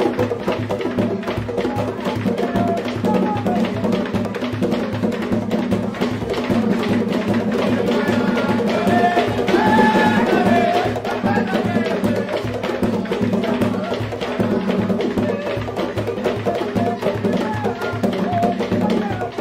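Afro-Brazilian tambor de crioula drumming: a fast, steady rhythm of hand drums with sharp wooden knocks. A voice sings over it, most clearly around the middle.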